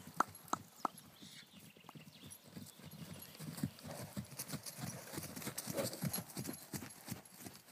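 Hoofbeats of an Estonian draft horse mare and her foal running on grass: dull, irregular thuds that grow busier in the second half. A run of sharp, evenly spaced clicks, about four a second, stops about a second in.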